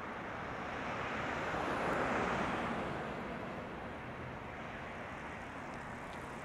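A vehicle passing on the road, its tyre and engine noise swelling to a peak about two seconds in and then fading, over a steady background of street noise.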